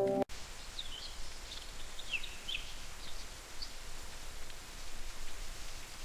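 Birds chirping, a scatter of short high calls in the first few seconds, over a steady hiss of outdoor ambience.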